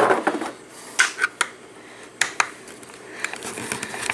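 Hard plastic clicks and knocks from hands handling the opened plastic jukebox housing and its parts: a few separate clicks, then a short patch of rubbing and rattling near the end.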